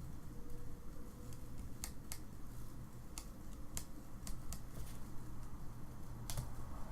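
Trading cards being handled and flipped through by hand: a scattering of about eight sharp clicks and snaps, the strongest near the end, over a low steady hum.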